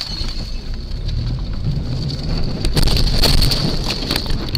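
Car cabin noise picked up by a dashcam while driving: steady road and engine rumble with wind and a high-pitched whine, and a few sharp knocks in the last couple of seconds.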